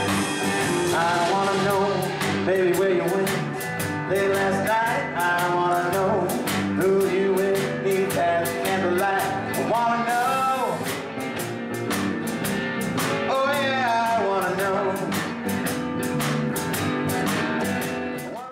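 Country-rock song with a singer, guitar and a steady drum beat, fading out at the end.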